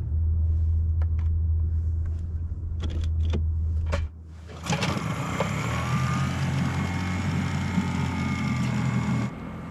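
Small Honda four-stroke outboard on an inflatable dinghy being started: a few sharp clicks and knocks over a steady low rumble, then about halfway through it catches and runs steadily, cutting off suddenly near the end.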